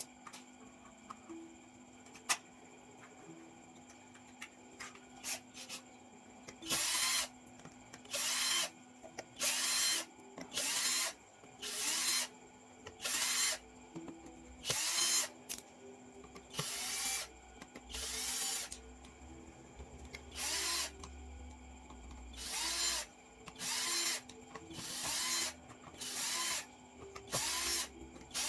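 A power drill-driver run in short bursts, roughly one a second, after a few faint clicks at the start, as screws are driven in the Korg PA700 keyboard's casing.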